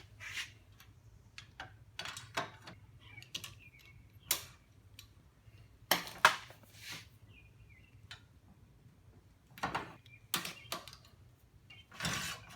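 Irregular clicks and metal knocks from a tubing bender and steel tubing being worked by hand, with the sharpest knock a little past halfway through.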